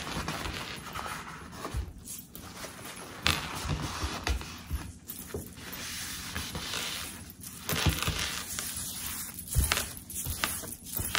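Kitchen clatter: irregular knocks and clinks of dishes and utensils being handled, with rustling in between.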